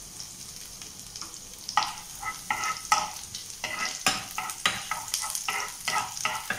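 Chopped garlic sizzling in hot oil in a frying pan. From about two seconds in, a metal spoon stirs it, scraping and knocking against the pan in repeated strokes, roughly two a second.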